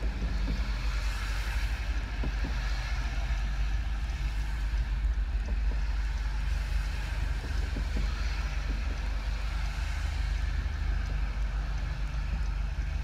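Steady low rumble of an idling car and the wash of highway traffic, heard from inside a stopped car with the driver's window open.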